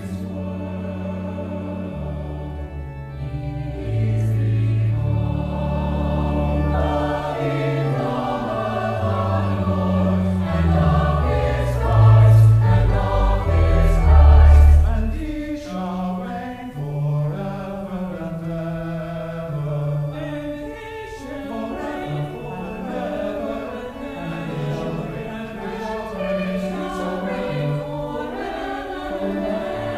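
Mixed virtual choir singing with organ accompaniment. Deep organ pedal notes sound beneath the voices and drop out about halfway through, leaving the choir and upper organ parts.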